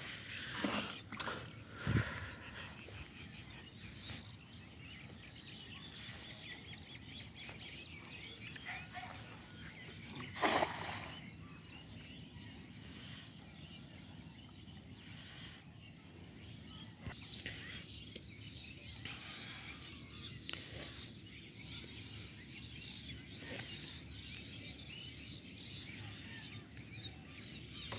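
A cast net lands on a pond with a brief splash about ten seconds in, against a quiet outdoor background with faint bird calls. There is a sharp thump about two seconds in.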